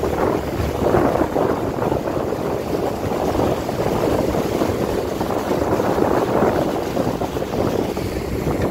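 Small motorboat running fast over open water: wind buffeting the microphone in uneven gusts over the hiss and rush of water and spray off the hull.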